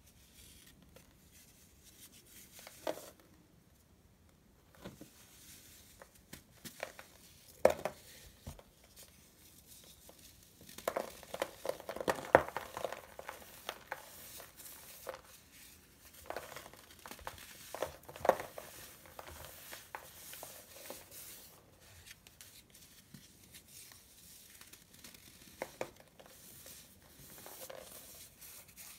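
A large block of dried baking soda being crushed and crumbled by hand: irregular crunches and sharp cracks as chunks break off, with softer powdery crumbling between them. The crunching is busiest near the middle.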